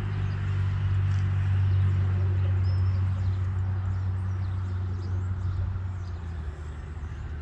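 Steady low engine hum running evenly, with a bird chirping faintly once about three seconds in.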